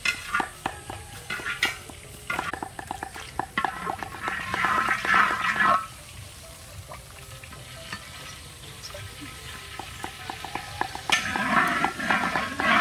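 Metal ladle scraping and clinking against a large iron wok of hot oil over a wood fire, many quick strokes. The oil sizzles in bursts, about four to six seconds in and again near the end.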